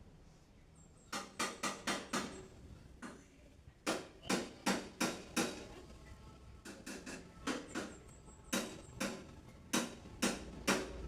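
Konin songbird (common iora) giving short, sharp, clipped notes in quick runs of four or five, about three a second, with brief pauses between the runs.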